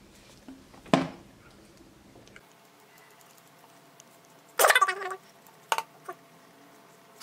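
Kitchen scissors cutting raw bacon against a wooden board: a sharp knock about a second in, then a quick run of clicking snips near the middle and two more single clicks shortly after.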